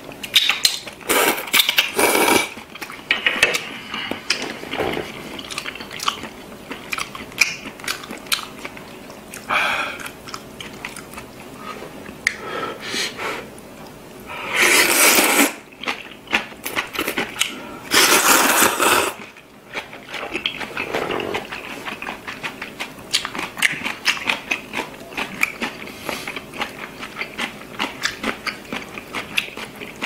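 A person slurping thick wheat noodles and soup in several long, loud sucks, the loudest about halfway through, with chewing sounds in between.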